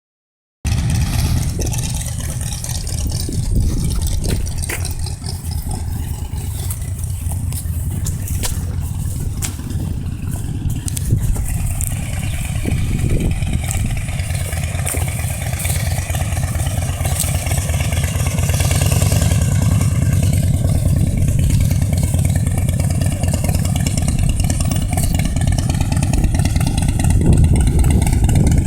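Motorcycle engine running steadily, growing a little louder toward the end.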